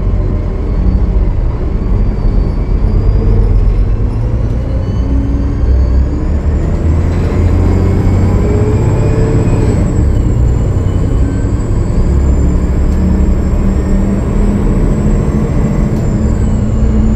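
Cummins ISL9 diesel engine of a 2013 Gillig Low Floor bus heard on board, pulling as the bus accelerates, its pitch climbing for several seconds before dropping back about ten seconds in. A thin high turbocharger whine rides over the deep engine rumble, rising and falling with it; the title says this turbo is leaking.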